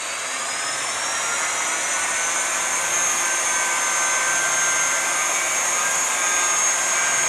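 Variable-speed grinder running a 1500-grit diamond polishing pad over wet marble: the motor whine rises in pitch over the first few seconds as it speeds up, then holds steady, with the hiss of the wet pad on the stone.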